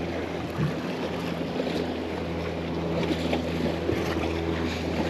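A boat's motor hums steadily and low, with wind and water noise around it.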